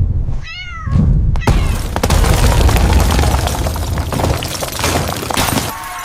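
A brief high cry, then a loud, continuous low rumble thick with crashing and shattering, like debris and glass breaking as a building shakes in an earthquake.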